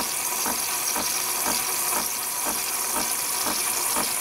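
Nespresso Lattissima Plus frothing and dispensing hot milk into a glass: a steady hiss with a regular pulse about twice a second.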